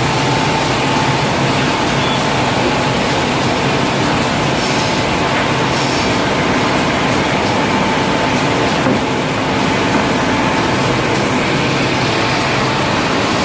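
R-RP 1000 calibrating wide-belt sanding machine running steadily: a loud, even mechanical noise with a constant hum that holds level throughout.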